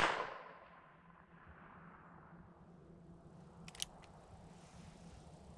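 The echo of a .22 Magnum revolver shot dying away over the first half second, then quiet until a quick cluster of three sharp clicks nearly four seconds in.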